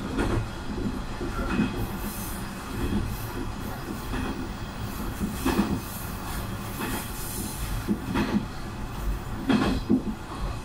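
Diesel railcar running along single track, heard from inside near the front: a steady rumble with knocks from the wheels about every second or so.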